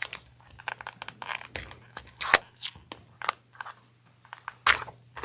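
Foil wrapper of a Magic: The Gathering collector booster pack crinkling and tearing as it is opened by hand: an irregular run of sharp crackles, louder near the end.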